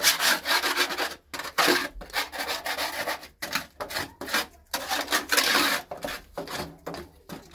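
Hand tool scraping along the concrete floor of a grasscutter block cage in irregular strokes with brief pauses, working out droppings and grass bedding.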